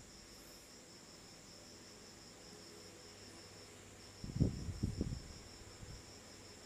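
Crickets chirping steadily, with a brief pause a little before halfway. About four seconds in come a few low thumps and rustles close to the microphone.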